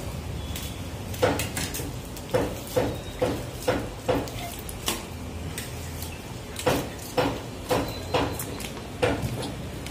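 Sharp clanking knocks, about two a second, in two runs of several strikes each, over a low steady hum.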